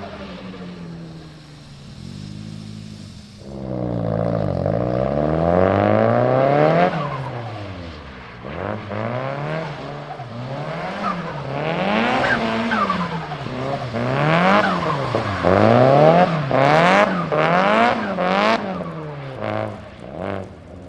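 Nissan Silvia S15's turbocharged SR20DET inline-four repeatedly revving up and falling back, roughly once a second, while the car slides on wet tarmac with some tyre squeal.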